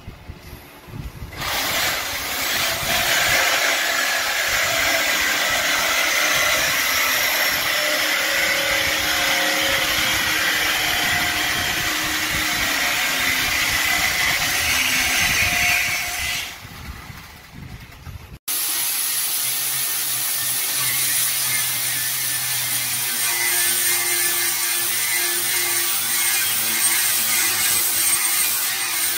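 Angle grinder cutting steel, running steadily for about fifteen seconds and then stopping. After an abrupt cut, an angle grinder cuts into rusty steel frame metal for the rest of the time.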